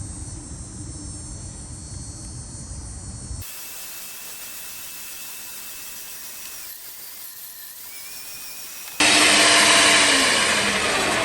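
Sun Joe CJ603E electric wood chipper-shredder switched on about nine seconds in, its motor running loud with a high whine whose pitch sags near the end. Before it, crickets chirping, then after an abrupt cut a steady hiss.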